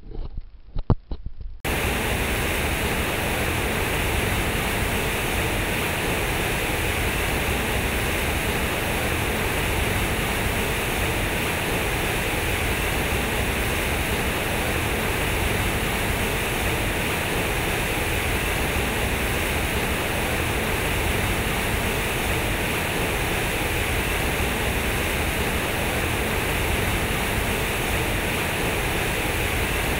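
Water gushing and splashing from a large concrete fountain into its pool, a steady rushing noise that starts abruptly about two seconds in, after a few brief knocks.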